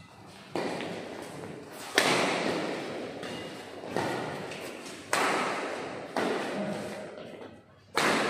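Badminton rackets striking a shuttlecock during a doubles rally: six sharp hits a second or two apart, each echoing in a large hall.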